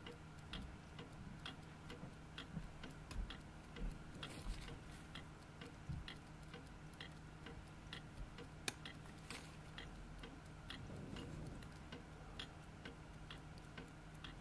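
Smiths Enfield clock movement ticking steadily as its balance-wheel escapement runs, about two to three even ticks a second. There is one sharper click a little past the middle.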